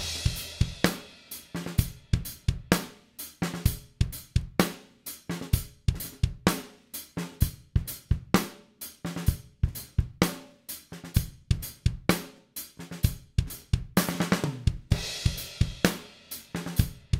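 Multitrack recording of an acoustic drum kit playing a steady groove of kick, snare and hi-hat. The kick drum is layered with a punchy kick sample to reinforce it. Cymbal crashes ring near the start and again near the end.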